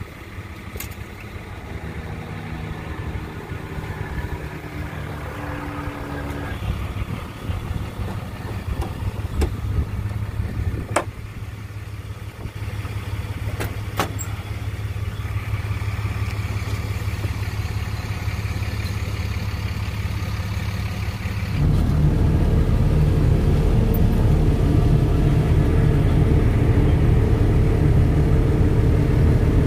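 Large farm truck engine idling steadily, with a few sharp knocks in the middle. About twenty seconds in it jumps to a much louder, deeper idle heard from inside the truck's cab.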